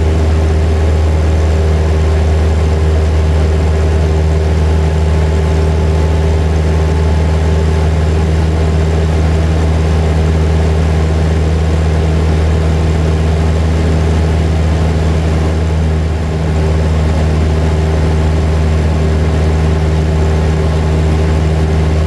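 Cessna 172's piston engine and propeller heard from inside the cabin: a loud, steady, low drone that dips slightly for a moment about sixteen seconds in.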